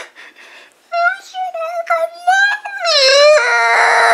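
A high-pitched wordless voice whining, its pitch bending up and down, louder and more sustained from about three seconds in.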